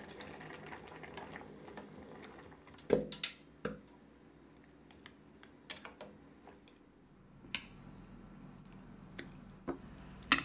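Metal ladle knocking and scraping against a stainless steel pot of soup as it stirs and scoops, with soft sloshing and dripping of broth. The sharp clinks come scattered, the loudest a pair about three seconds in.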